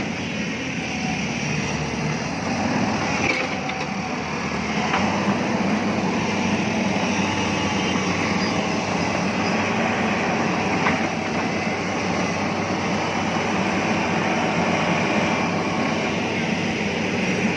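Heavy diesel earthmoving machinery running steadily, a continuous mechanical rumble with a few faint clicks.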